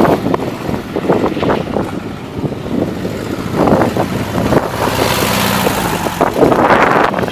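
Light helicopter flying past in the air, its rotor and turbine running steadily, with wind gusting hard on the microphone, strongest near the start and the end.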